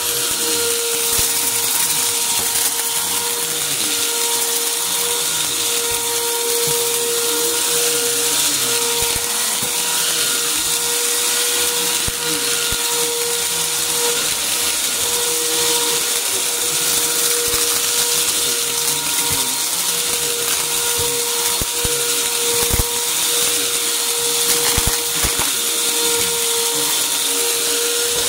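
Upright vacuum cleaner running steadily on carpet, its motor a constant whine, with scattered crunching and crackling as debris is sucked up the hose. There are a couple of sharper cracks a little past twenty seconds in.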